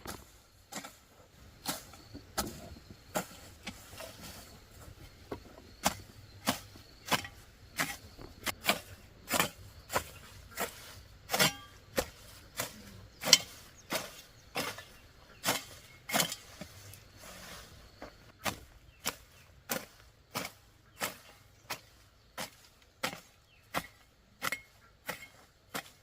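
A hand hoe chopping into the soil again and again, about one and a half strokes a second, at a steady working pace.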